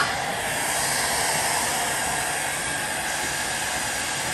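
Heat gun blowing a steady rush of hot air, warming graphic vinyl on a dirt bike's plastic side panel so it stretches into shape.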